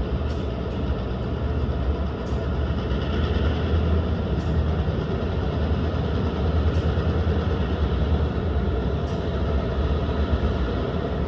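Diesel locomotive running steadily, a low drone, with a faint short tick about every two seconds.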